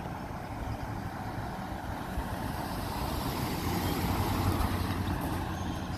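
Box-bodied ambulance driving past close by: engine and tyre noise swelling to its loudest about four to five seconds in as it passes, then easing.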